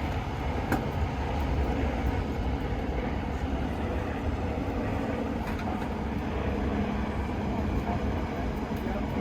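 Steady low engine rumble, as of a vehicle running, with a few faint clicks.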